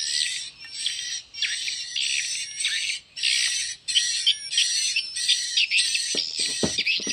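Swiftlet lure-call recording played through horn tweeters: dense, high-pitched twittering chirps in phrases with brief breaks, the electronic sound used to draw swiftlets into a nest house. A few soft knocks near the end.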